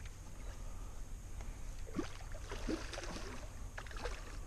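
Small water splashes and sloshing around a kayak, a few short ones between about two and four seconds in, over a steady low rumble.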